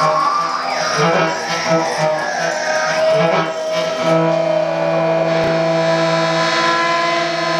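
Free-improvised experimental music on homemade instruments: an electric string instrument plucked in quick, uneven notes, then a steady held drone from about four seconds in. A single sharp click sounds about halfway.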